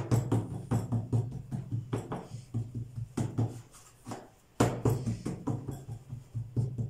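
Background music with a steady percussive beat. It drops out briefly about four seconds in, then resumes.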